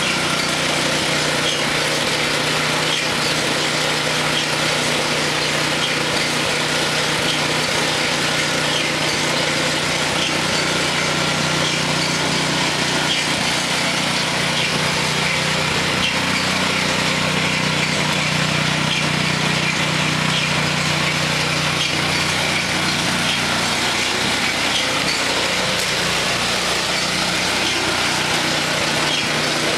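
Small gasoline engine running steadily at constant speed, with no change in pitch or level.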